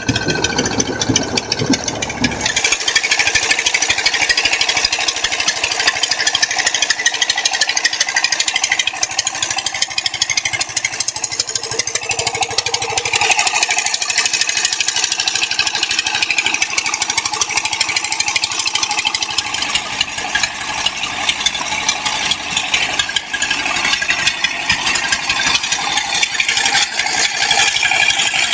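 Fishing boat's engine running steadily with a rapid clatter while the boat is under way.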